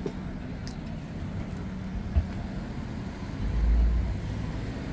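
City street traffic: a steady low hum of vehicles, with a short knock about two seconds in and a louder low rumble of a vehicle passing close at about three and a half seconds.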